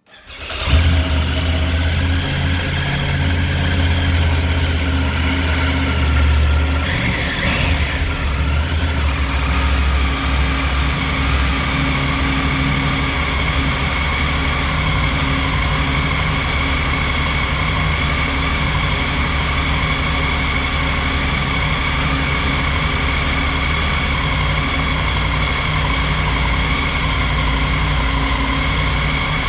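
Triumph Tiger 900 Rally's three-cylinder engine idling steadily. It comes in abruptly under a second in.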